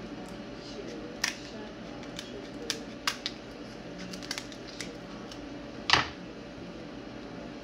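Lobster shell being cut down the middle: irregular sharp clicks and cracks of the shell giving way, about half a dozen, the loudest crack about six seconds in.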